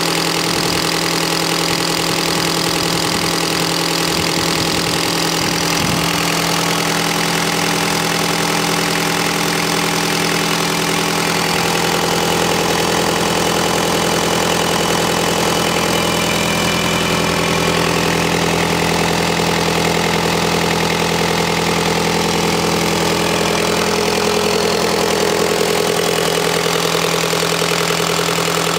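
Kubota V2003-TE four-cylinder turbocharged diesel engine idling steadily.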